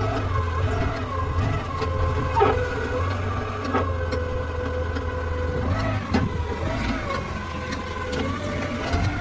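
A motor vehicle engine running steadily, its pitch wavering up and down, with several sharp knocks or clicks along the way.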